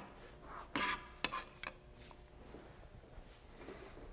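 Kitchenware being moved off a cutting board: a few light knocks and clinks of dishes and utensils in the first two seconds, then quieter handling sounds.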